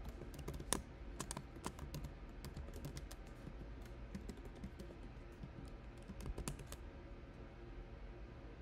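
Typing on a computer keyboard: a run of quick, uneven key clicks that stops near the end.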